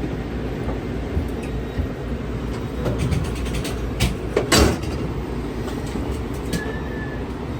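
VIA Rail train at a station platform: a steady low rumble with scattered clicks and clatter, the loudest a sharp knock about four and a half seconds in.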